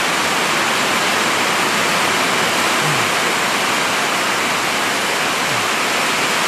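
Heavy rain pouring down steadily in a loud, even hiss.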